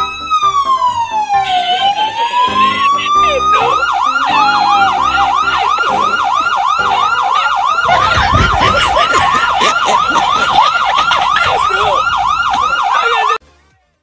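Fake police siren played from a loudspeaker. It gives a slow rising-and-falling wail, then about 3.6 s in switches to a fast yelp of about three sweeps a second, and cuts off suddenly near the end.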